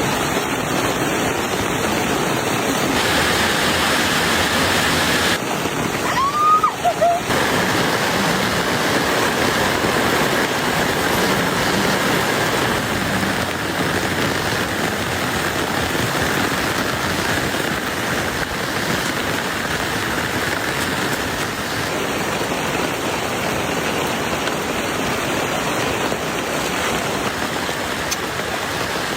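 Heavy rain falling steadily, a dense even hiss. About six seconds in, a brief high call glides up and then down over it.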